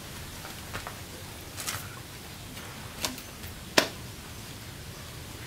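A few short, sharp clicks over a steady low hiss, the loudest a single crisp click near the end.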